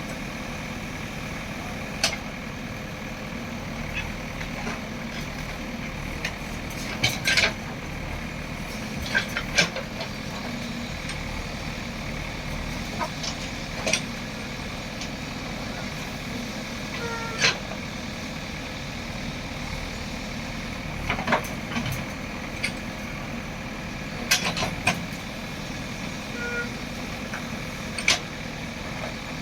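A JCB machine's diesel engine running steadily under work, with sharp cracks and knocks breaking in at irregular intervals, about a dozen of them, some in quick pairs.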